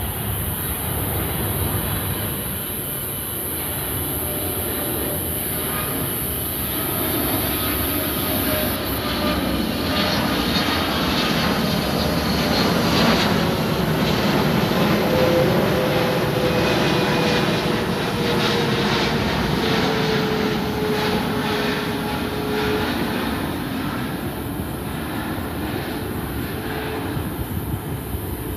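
Jet airliner on approach passing low overhead: its engine noise swells to a peak about halfway through and then eases off, with a faint whine that slowly falls in pitch.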